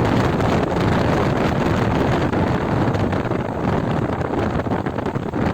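Wind rushing over the microphone of a Honda SP125 motorcycle riding at speed, a steady buffeting rush with the bike's running noise underneath.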